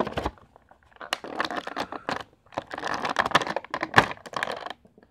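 Clear plastic packaging crinkling and crackling as it is handled, in two spells, with a sharp snap near the end.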